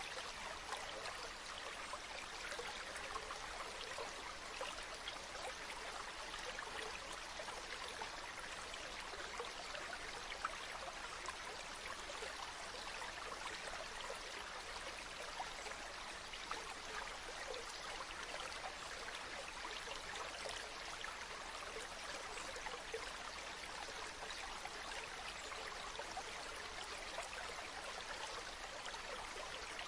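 Stream water running steadily over rocks, a continuous babbling rush with fine splashy detail.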